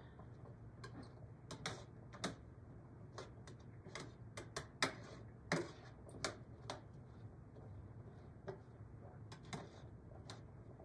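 Kitchen tongs clicking and tapping against a baking sheet in light, irregular strikes while cubed sweet potato and diced onion are tossed in olive oil.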